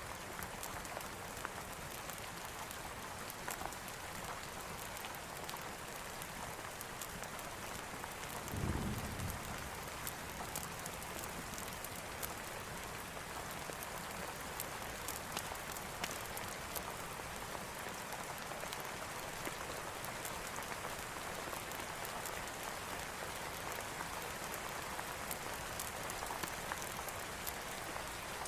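Steady rain falling, a dense even hiss with many fine droplet ticks. A brief low rumble comes about nine seconds in.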